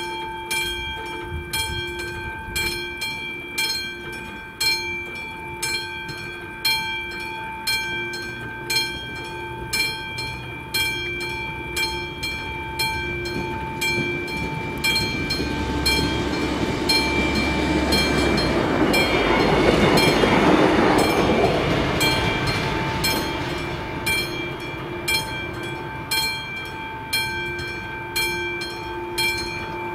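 A classic level-crossing warning bell ringing in a steady rhythm of repeated strokes. Midway through, a train passes over the crossing, its rumble rising to a peak and fading, while the bell keeps ringing.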